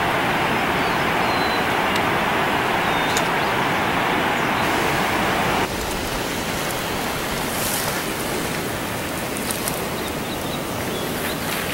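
Steady rushing of running water, a constant hiss with no rhythm. About halfway through it changes abruptly to a slightly quieter, brighter hiss with a few faint ticks.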